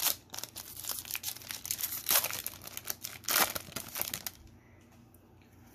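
Foil Pokémon booster pack wrapper crinkling and tearing as it is opened by hand, in dense irregular crackles that stop about four seconds in.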